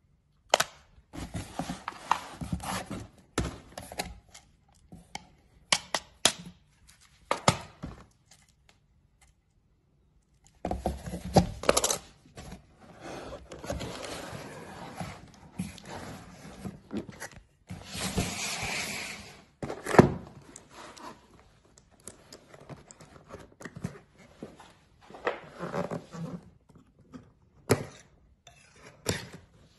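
Unboxing handling noises: cardboard packaging rustling and scraping, with metal pellet tins knocking and clinking against each other, and irregular thunks throughout.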